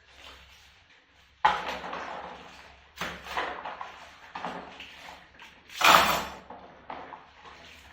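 Kitchen utensils and pots being handled and washed: a series of sharp knocks and clatters, about one every second and a half, with a louder rush of noise about six seconds in.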